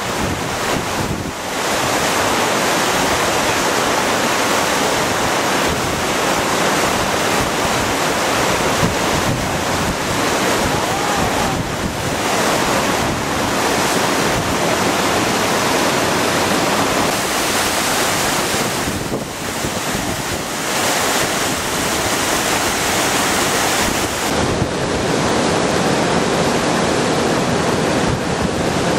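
Mountain stream waterfall cascading down a rock gorge into a pool: a loud, steady rush of falling water, dipping briefly a few times.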